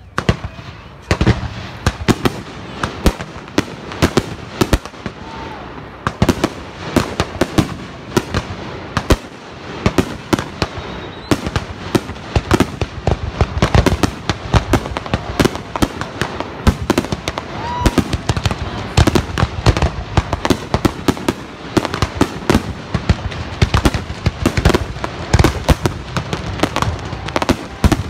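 Fireworks display: a rapid, continuous barrage of bangs and crackles from aerial shells bursting overhead, starting abruptly and going on without a break.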